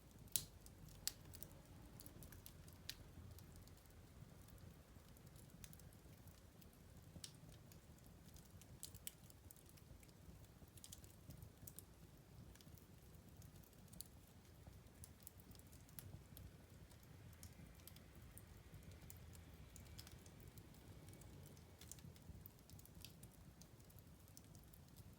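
Wood fire crackling in a fireplace: faint, irregular sharp pops and snaps over a soft, steady low rumble, with one louder pop about half a second in.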